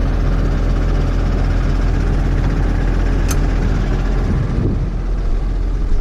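Tractor engine idling steadily, with a single short click about three seconds in.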